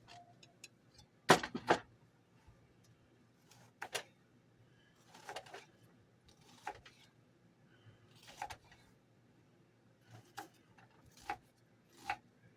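Kitchen knife striking a cutting board while an onion is chopped: slow, irregular knocks about a second apart, with a louder pair of knocks about a second in.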